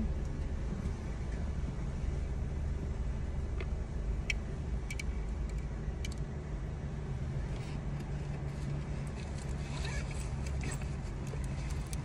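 Car engine running at low speed, heard from inside the cabin as a steady low hum. A few light clicks and some rustling come through over it, most near the end.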